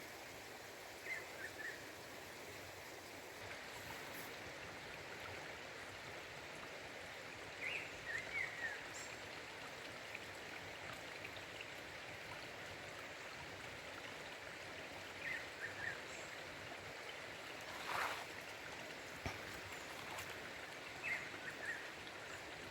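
Black-throated grosbeak (bico-de-pimenta) singing short phrases, four times about seven seconds apart, over the steady rush of a nearby waterfall. A single sharp click comes about three-quarters of the way through.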